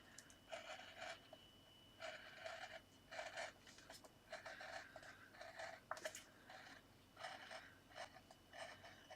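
Craft knife blade cutting around a line in card, faint short scratchy strokes, about two a second.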